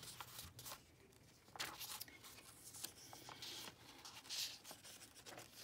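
Faint rustling of paper pages being turned and folded back by hand in a handmade journal: a few soft brushes and flicks, the clearest around two seconds in and again past the middle.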